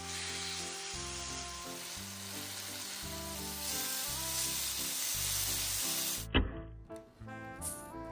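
Chicken breast pieces sizzling as they fry in a hot nonstick pan, stirred with a silicone spatula, under background music. The sizzle cuts off suddenly with a knock about six seconds in, leaving the music.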